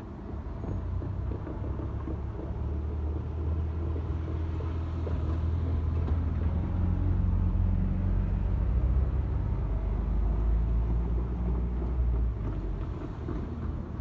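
A low, steady mechanical rumble with a deep hum, growing louder about four seconds in and easing slightly near the end.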